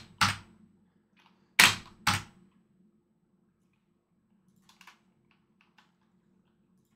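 Computer keyboard keys struck hard: three sharp clacks in the first two seconds, then a few faint light clicks around the five-second mark.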